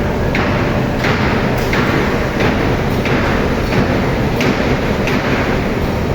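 Stone-processing machinery running steadily, with a short scraping hiss that repeats about every two-thirds of a second.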